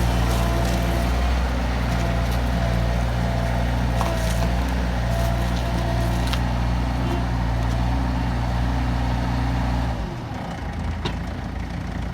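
Bobcat 793 skid steer's diesel engine running steadily, then dropping in speed about ten seconds in, its note falling and the sound getting quieter and rougher.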